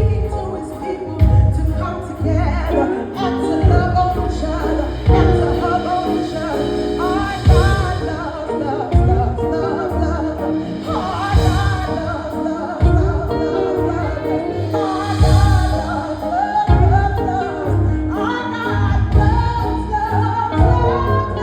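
A song with singing over a heavy bass beat.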